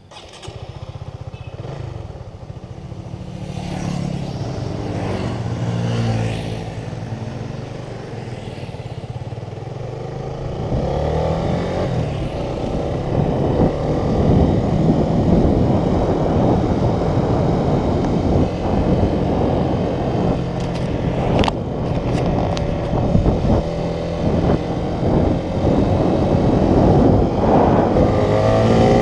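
Honda Sonic 150R motorcycle's single-cylinder engine, bored out to 200cc, running and being revved repeatedly, its pitch rising and falling. It grows louder about halfway through.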